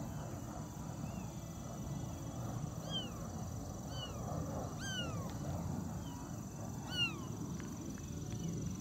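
Twenty-day-old kitten mewing: about six short, high-pitched mews a second or so apart, each rising then falling, the loudest about seven seconds in.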